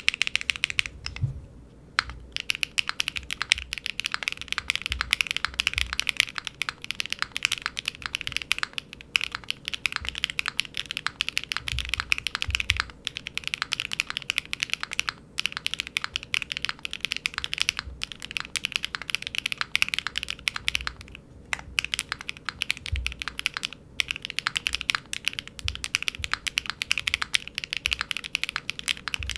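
Continuous fast typing on a mechanical keyboard fitted with Keygeek Pomkin linear switches: factory-lubed, full-POM switches with a single-stage spring, giving rapid dense clacks with a few brief pauses.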